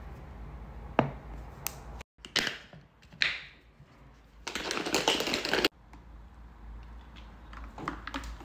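Close-miked sounds of a protein shake being made in a plastic shaker bottle. An ice cube clinks into the bottle about a second in, and a couple of short sharp sounds follow. Then the closed bottle is shaken for about a second, ice and liquid rattling inside, and the shaking stops abruptly.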